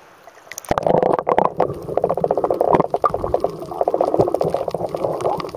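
A camera plunging under the sea surface about half a second in, followed by muffled underwater bubbling and gurgling of water against the microphone, a dense rapid crackle.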